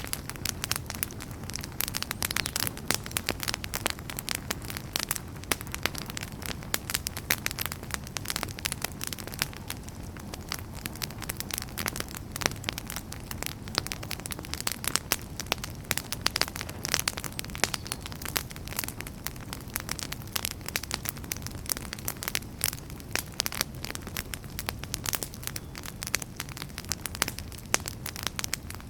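Wood fire burning in a fireplace: a steady low rumble of flames under dense, irregular crackling and popping of burning logs.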